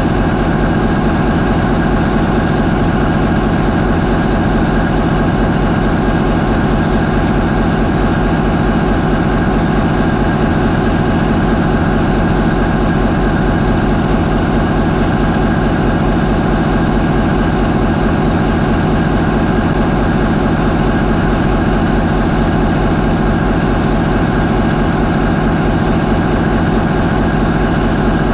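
MAN 20V28/33D STC twenty-cylinder V diesel marine main engine running at a steady 550 RPM: a loud, even drone with no change in speed.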